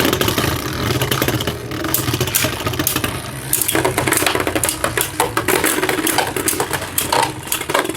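Two Beyblade Burst spinning tops whirring in a plastic stadium, with many sharp clacks as they collide.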